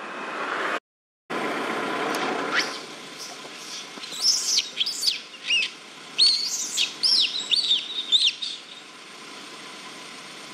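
A songbird singing a run of quick, high chirps that sweep up and down over several seconds, over a steady outdoor hiss. The sound cuts out briefly about a second in.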